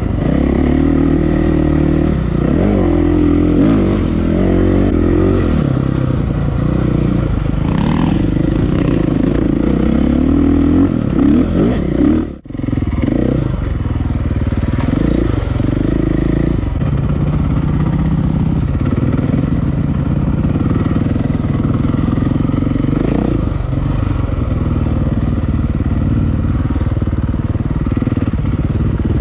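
KTM EXC enduro dirt bike's four-stroke single-cylinder engine, ridden on a trail, revving up and down with throttle changes. The sound drops out sharply for a moment about twelve seconds in, then the engine carries on.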